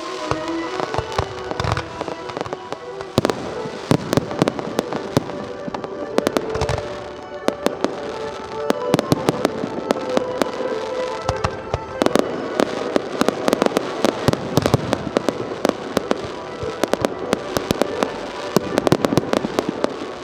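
Firework display: many sharp bangs and pops going off in quick succession, thickest in the second half, over music playing throughout.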